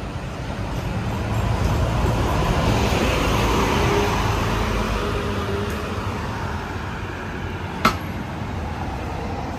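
A motor vehicle passing on the street, its noise swelling over the first few seconds and fading away, over steady traffic rumble. A single sharp click sounds near the end.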